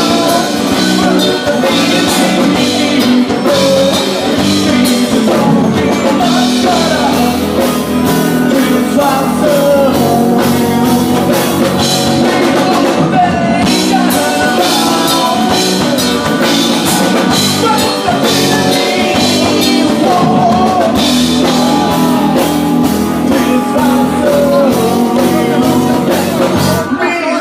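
Rock music played loud and steady, with drum kit, guitar and a singing voice.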